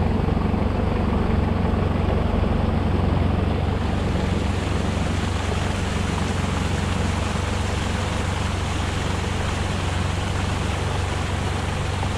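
Toyota Hilux Surf engine idling steadily, under the even rush of a stream pouring over rocks.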